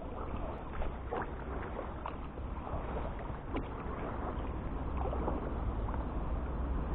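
Kayak paddle strokes splashing and dripping in river water, with many short scattered splashes over a steady low wind rumble on the microphone.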